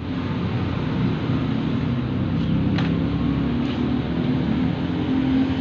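A steady engine-like rumble with a wavering low hum, with a couple of faint clicks about halfway through.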